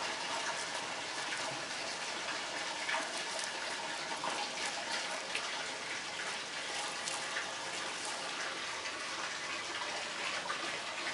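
Steady hiss of running, splashing water, with a few faint ticks over it.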